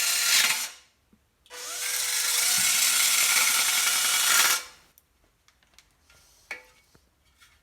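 A handheld power tool running in two spells: one that cuts off under a second in, then after a short pause a longer run of about three seconds that winds up and stops. A few light clicks and taps follow.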